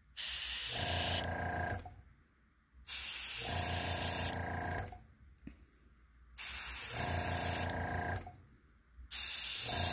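Airbrush spraying paint in four short bursts, each about two seconds of loud air hiss with a steady motor hum from its small compressor, separated by brief quiet gaps.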